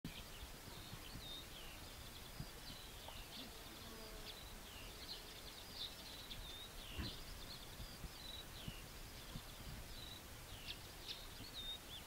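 Faint songbirds twittering: a steady run of short, high rising and falling chirps over a low rumble, with one faint knock about seven seconds in.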